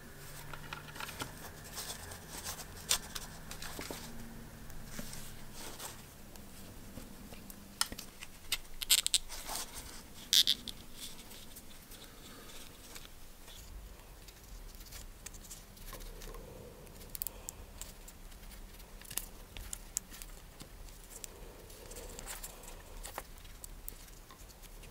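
Close handling sounds of a rubber cord-protector sleeve being worked onto a drill's power cord: scattered small clicks, rubbing and creaking, with a few sharper clicks about nine to ten seconds in.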